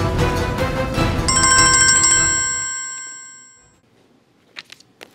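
A mobile phone's ringtone, a repeating electronic chime, starts about a second in over background music that fades out. It stops near the middle and starts again at the end, with a few faint clicks in the pause.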